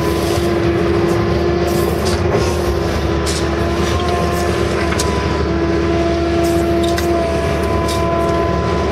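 Case CX160 hydraulic excavator's diesel engine and hydraulics running steadily, heard from inside the cab, with a steady whine and a few light clicks as the machine swings and digs.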